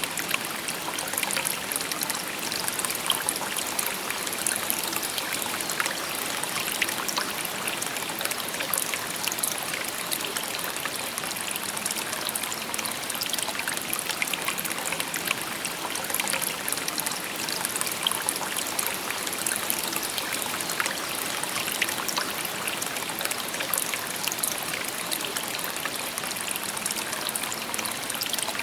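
Shallow river babbling over stones, a steady rushing hiss dotted with small splashes and trickles.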